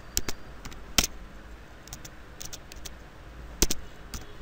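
Computer keyboard keystrokes typing a short command: scattered clicks, with sharper strikes about a second in and a pair near the end.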